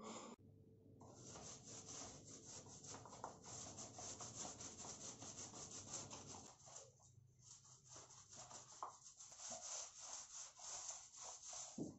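Paint roller loaded with black exterior paint being rolled over a rough cinder block wall: a faint, scratchy rubbing in quick repeated strokes. The rubbing turns sparser about halfway through.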